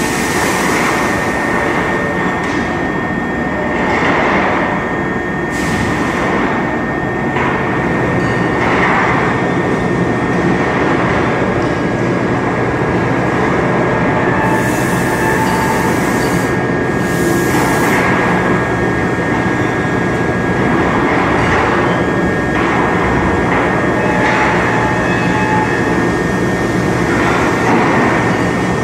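Automatic foundry casting conveyor line running: a loud, steady mechanical rumble and clatter with a constant high whine, and louder clattering surges every couple of seconds. About halfway through come two bursts of high hissing.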